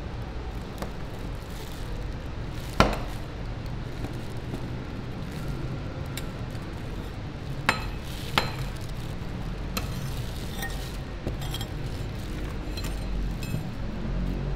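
Metal spatulas clinking and scraping on a rolled ice cream cold plate, chopping pieces of chocolate bar, with a few sharp strikes: the loudest about three seconds in and two more near eight seconds. A steady low hum runs underneath.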